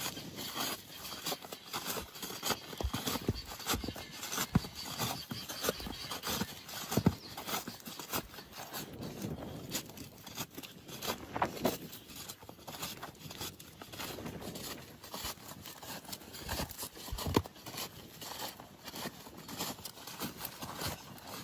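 Irregular light taps, clicks and scrapes from hands-on roofing work, with a few sharper knocks.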